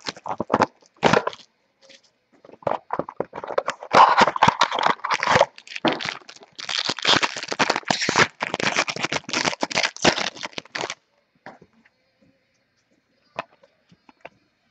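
Packaging of a trading-card mini box being torn open, with rustling, crackling and crinkling, going quiet about eleven seconds in apart from a few faint clicks.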